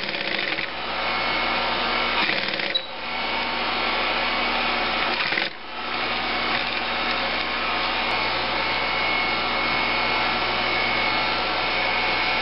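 Singer 111W155 compound-feed industrial sewing machine running steadily, stitching, with two brief dips a few seconds apart in the first half.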